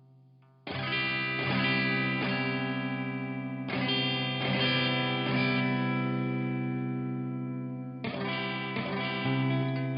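Electric guitar played through a Hotone Ampero 2 multi-effects processor: chords struck just under a second in, again near four seconds and near eight seconds, each left ringing out.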